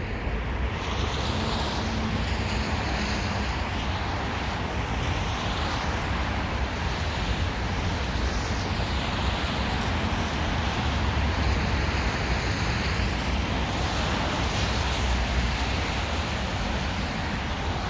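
Wind in a snowstorm blowing over the microphone: a steady rushing noise with a low rumble that swells and eases in gusts.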